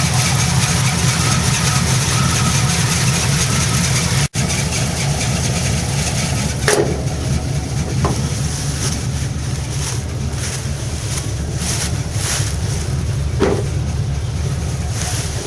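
Old car engine idling steadily after a cold start, with wind buffeting the microphone.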